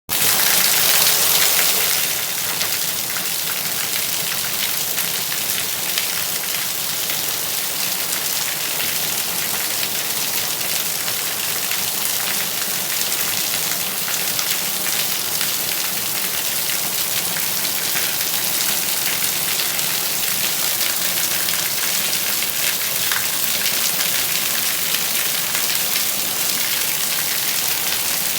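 Steady rain falling, an even hiss of many drops, a little louder for the first two seconds and then constant.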